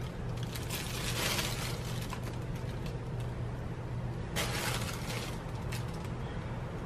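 Plastic bag of wheat flour rustling as flour is scooped out with a spoon and dropped into a bowl, in two spells, near the start and past the middle, over a steady low hum.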